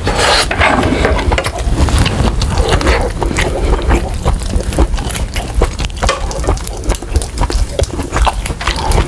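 Kitchen scissors snipping through grilled pork butt, and metal tongs clicking against a ridged electric griddle, in many short sharp clicks, with close-miked chewing.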